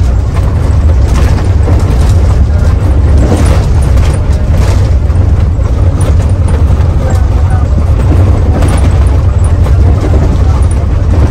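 Steady low drone of a Mercedes-Benz OH 1521 bus running, heard from inside, under road noise with scattered knocks and rattles.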